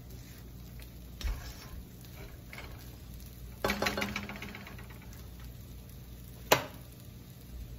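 Stir-fried noodles being tossed in a metal wok with a silicone spatula over a light sizzle, with a short rattle of the spatula against the wok a little past halfway. A single sharp knock near the end is the loudest sound.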